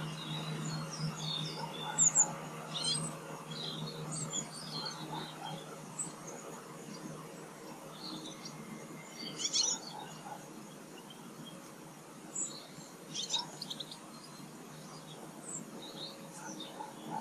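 Small garden birds chirping and calling, with short high calls scattered throughout and several birds overlapping. A low steady hum sounds underneath in the first few seconds and then fades.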